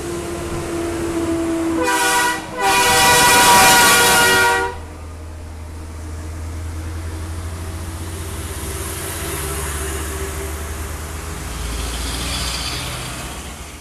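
Tractor-trailer air horn sounding twice, a short blast about two seconds in and then a longer, louder one, followed by the truck's engine and its tyres on the wet road as it passes.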